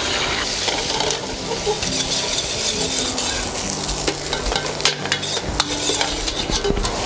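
An egg frying and sizzling in hot oil in a wok, while a metal ladle stirs and scrapes, clicking against the wok again and again.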